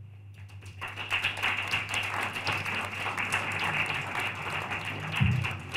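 Audience applauding, starting about half a second in and easing off near the end.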